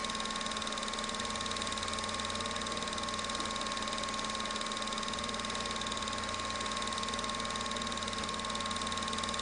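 Home-movie film projector running: a steady mechanical whir with a thin, high, constant whine and a fast, even flutter.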